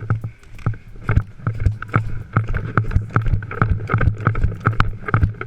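A rapid, regular series of sharp knocks, about three to four a second, over a steady low hum.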